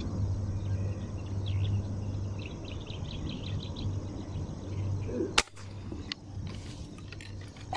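Air gun for fish hunting fired once at the water, a single sharp crack about five seconds in, followed by a few lighter clicks.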